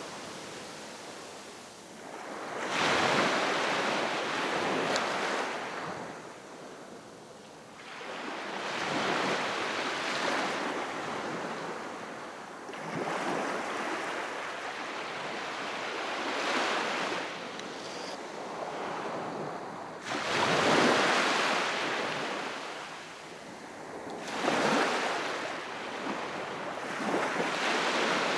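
Small, calm sea waves washing onto the shore, a soft rush that swells and fades about every four seconds. The loudest wash comes about two-thirds of the way through.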